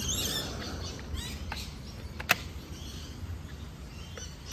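Birds chirping in the background, with one sharp click a little over two seconds in.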